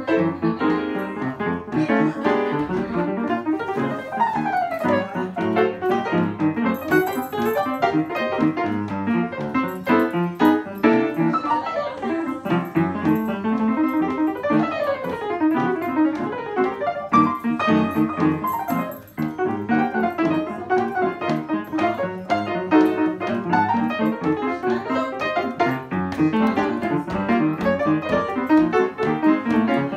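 Solo upright piano playing chords and quick runs that sweep downward, with a short break about two-thirds of the way through.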